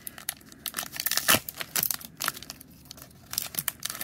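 Foil card booster pack wrapper being torn open and crinkled in the hands, a run of irregular sharp crackles that is loudest about a second in.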